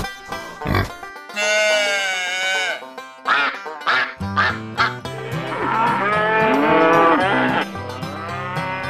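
Farm animal calls in turn: short grunts, a long call, mallard duck quacking, then several cattle mooing. Music with a steady bass line comes in about four seconds in.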